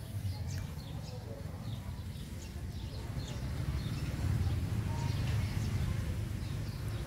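Small birds chirping in the background, many short high chirps scattered throughout, over a steady low rumble.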